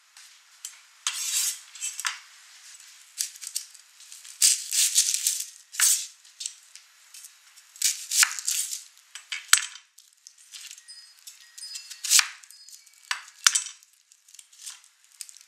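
Dry onion skin crackling and rustling in repeated bursts as a whole onion is trimmed and peeled by hand on a bamboo cutting board. A couple of sharp knife taps on the board land about two thirds of the way through and near the end.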